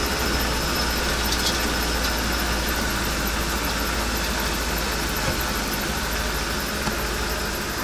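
Ford F53 motorhome engine idling steadily, heard from inside the cabin with the engine cover off, during a fuel pressure check on its newly fitted fuel pump.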